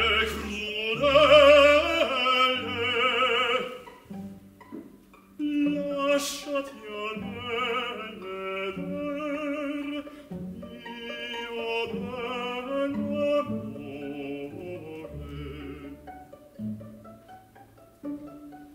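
Live opera: a male singer holds a phrase with wide vibrato over the chamber orchestra, then about four seconds in the orchestra's strings play on alone, growing quieter, with short plucked notes near the end.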